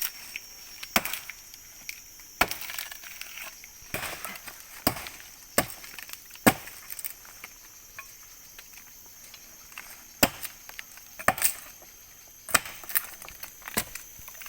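A blade chopping into a tree trunk, about ten sharp blows at uneven intervals with a pause of a few seconds in the middle. The cuts open the bark and wood to check for agarwood resin.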